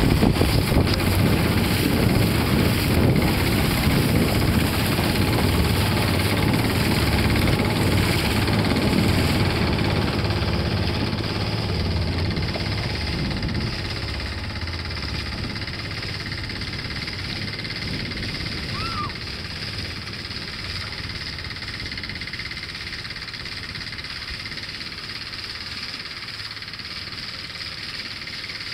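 Outrigger boat's engine running with rushing wind and water noise; the low engine rumble drops away about halfway through and the sound grows steadily quieter, as the boat slows.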